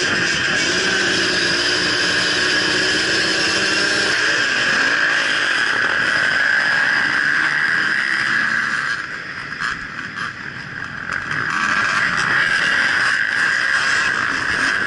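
A pack of motocross dirt bikes racing at high revs, heard from an action camera on one of the bikes, with rising engine revs in the first few seconds as they pull away from the start. The sound drops for about two seconds around nine seconds in, then picks up again.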